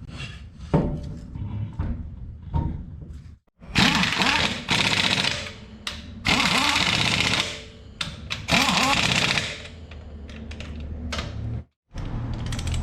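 Pneumatic or cordless impact wrench running lug nuts onto a truck wheel in several short bursts of rapid hammering, after a few clinks and knocks as the wheel and nuts go on.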